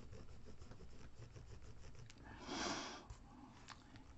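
Faint scratching of a metal ball-tipped shaping stylus pressed along a paper leaf on a soft mat, scoring vein lines into it. A short breath through the nose is the loudest sound, a little past halfway.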